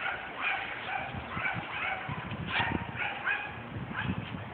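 Small dog yapping over and over, about twice a second, with dull low thumps underneath.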